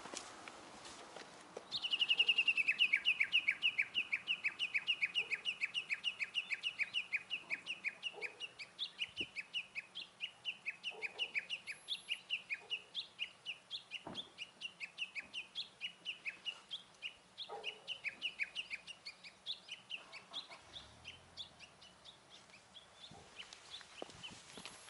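A bird calling a long, fast series of identical sharp notes, each falling in pitch, several a second. It starts abruptly about two seconds in and slowly grows fainter over the following twenty seconds.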